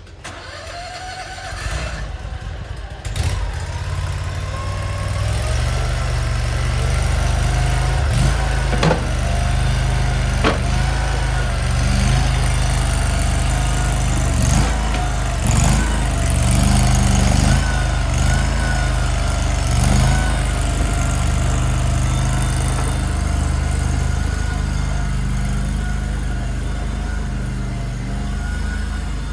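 Small engine of a JQ400 (AGT LRT23) mini skid steer running, building up over the first few seconds and then holding, its pitch wavering up and down as it works under changing load. A few sharp clanks come through about 8 to 11 seconds in.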